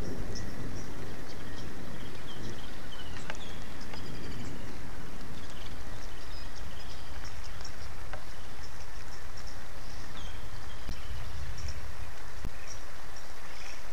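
Thunderstorm ambience: a low rumble of thunder that eases off over the first few seconds, under a steady hiss of rain and wind. Short high chirping calls come and go throughout.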